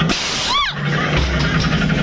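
Haunted dark-ride sound: a steady mechanical hum is broken by a sudden half-second burst of hiss, then a short, high wavering shriek-like tone, before the hum resumes.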